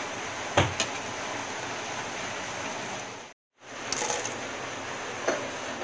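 Bread rolls deep-frying in hot oil, a steady sizzle. Near the start come a couple of sharp clicks from the metal slotted spatula. The sound cuts out briefly just past halfway, then the sizzle resumes.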